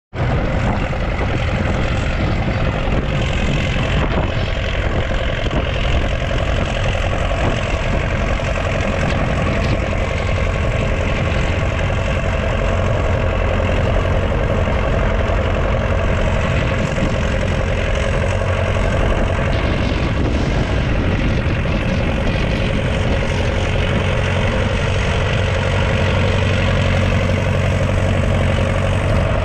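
1981 Leyland 802's 3.8-litre four-cylinder diesel engine running at a steady speed, with no rise or fall in pitch.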